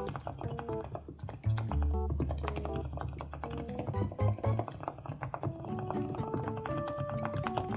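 Light, casual background music with short melody notes, over quick, irregular typing clicks on a mechanical keyboard.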